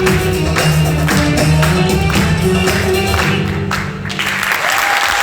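Live ensemble music with a steady percussion beat, ending about four seconds in, followed by audience applause.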